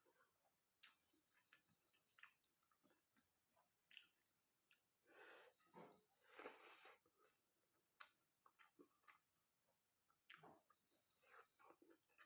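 Close-miked chewing of chicken curry and rice: soft wet mouth sounds and small clicks, with a longer, louder stretch of smacking about five to seven seconds in.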